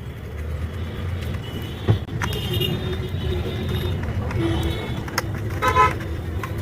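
Road traffic running past with a steady low rumble and horns honking briefly a couple of times. A single sharp click comes about two seconds in.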